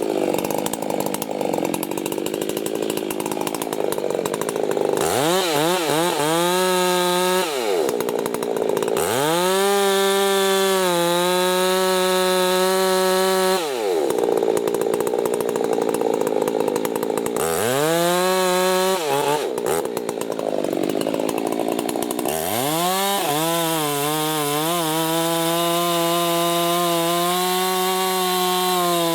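Chainsaw felling a tree, its two-stroke engine alternating between rough, loaded sawing and a high, steady rev. The engine pitch drops away and climbs back several times, and it holds a steady high rev for the last several seconds.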